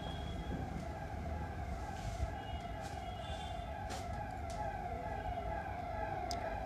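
A siren sounding steadily, its pitch wavering up and down over and over, with a few light clicks.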